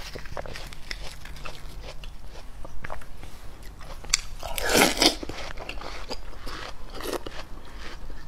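Close-miked chewing and crunching of juicy watermelon flesh scooped with a metal spoon, with crisp wet clicks throughout. The loudest bite comes about halfway through.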